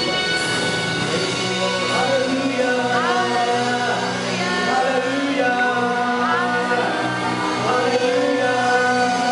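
Live worship band playing a Tagalog praise song: voices singing over electric guitar, drum kit and keyboard, with held sung notes and no break in the music.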